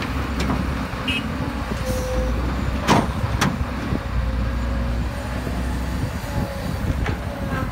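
Caterpillar hydraulic excavator's diesel engine running under load as it swings and dumps a bucket of soil into a dump truck, with a thin hydraulic whine that comes and goes. Two sharp clanks come about three seconds in.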